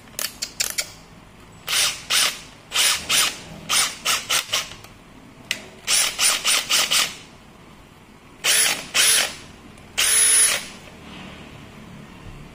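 Makita DDF484 18V brushless cordless drill driver run in a series of short trigger blips, its motor and chuck spinning up with a high whine each time; the longest run, about half a second, comes near the end.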